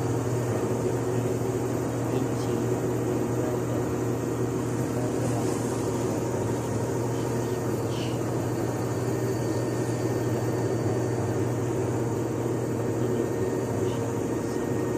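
LG inverter washing machine in its spin cycle, the drum turning with a steady, even motor hum that holds constant throughout.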